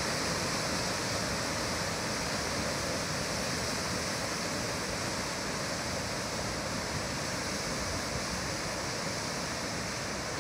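Waterfall rushing: a river pouring in a steady, unbroken wash of water noise.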